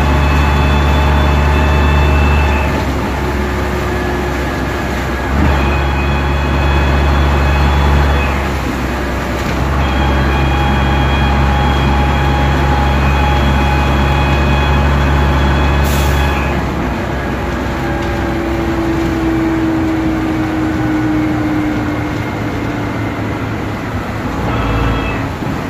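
Bristol VR double-decker bus under way, heard from the upper deck: the engine pulls hard at steady revs in three stretches, each cutting off abruptly as the gear changes. It then eases off into a quieter run, with a slowly falling whine as the bus slows.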